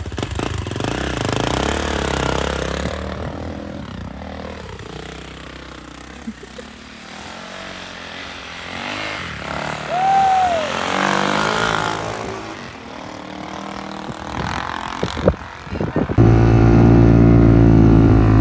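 Single-cylinder 450cc four-stroke dirt bike engines running and revving, their pitch rising and falling. A few sharp knocks come about fifteen seconds in. Near the end a bike runs loud and steady close by.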